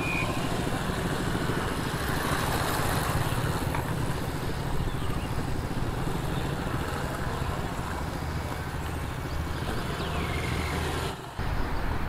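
Small motorcycle engine running as the bike is ridden around a tight cone course, with a brief drop in sound about eleven seconds in.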